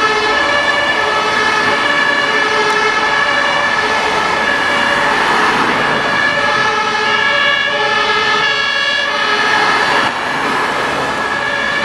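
Fire engine's two-tone siren (German Martinshorn) sounding, alternating back and forth between two pitches over city traffic. It gets a little quieter about ten seconds in as the truck moves away.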